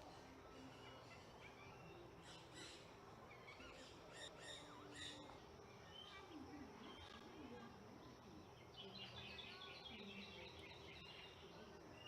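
Faint bird calls: scattered short chirps, then a rapid repeated trill from about nine seconds in.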